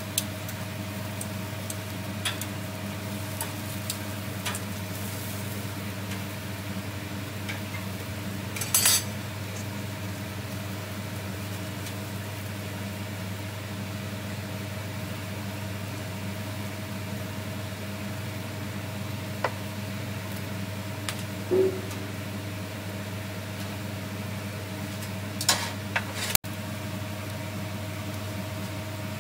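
Kitchen sounds: a steady low mechanical hum with scattered clinks and clatters of dishes and utensils. The loudest cluster comes about nine seconds in, and a few more come near the end.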